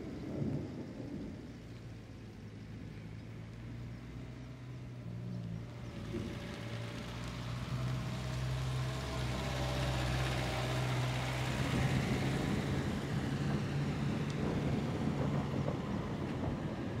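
Rumbling noise over a steady low hum, swelling louder about six seconds in and staying up.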